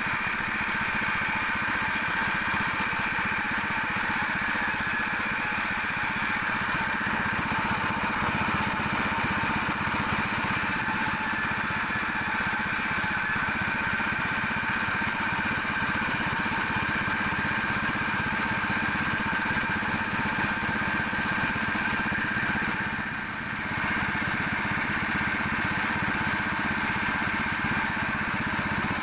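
Sawmill machinery running steadily: an engine-driven wood saw with a low running rumble and a steady high whine over it. The sound dips briefly near the end.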